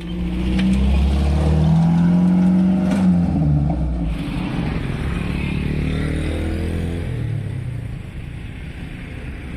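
A heavy vehicle engine accelerating, its pitch rising over the first few seconds and then dropping, loudest early and easing off near the end.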